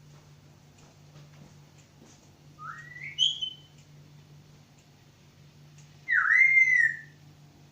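A pet talking bird whistling twice: first a short whistle rising in steps, then a louder swooping whistle that dips and rises before holding its note.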